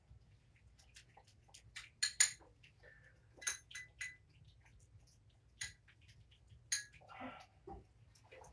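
A metal spoon clinking and scraping against small food bowls as wet cat food is spooned out. It makes a scattered run of sharp, ringing taps, the loudest two close together about two seconds in.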